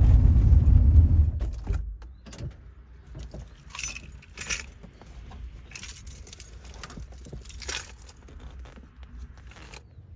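1994 Chevrolet Astro van's engine running, then shut off about a second and a half in. Keys jangle several times after that, with scattered clicks and knocks.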